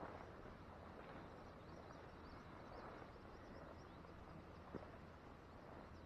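Near silence: faint outdoor ambience, with a few faint high chirps in the middle.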